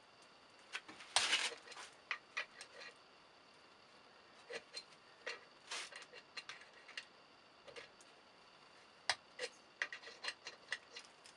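Irregular light clicks and short metal scrapes of a thread tap being turned by hand, cutting a larger thread into an aluminium transfer case for a helicoil insert. The loudest scrape comes about a second in.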